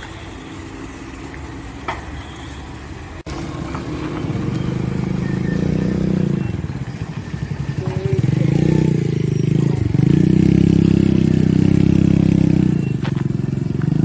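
A motor vehicle's engine running close by, growing louder from about four seconds in, wavering in pitch midway, and loudest and steady toward the end before easing off.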